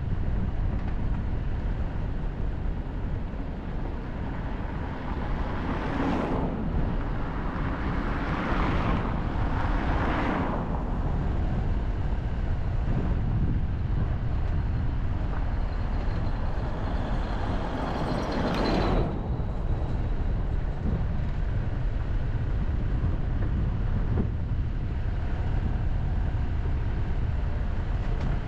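Steady low rumble of road and wind noise from a car on the move, with four louder whooshes of passing traffic that swell and fade, the last and biggest about two-thirds of the way in.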